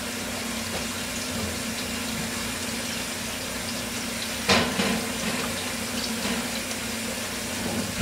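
Kitchen tap running into a sink, a steady rush of water, with a single clunk about four and a half seconds in.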